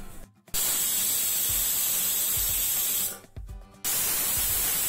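Stovetop pressure cooker whistling: steam jets out past the lifted whistle weight in a loud, steady hiss with a thin high tone over it. The hiss breaks off briefly about three seconds in, then resumes. This is the cooker's third whistle, on the dal cooking inside.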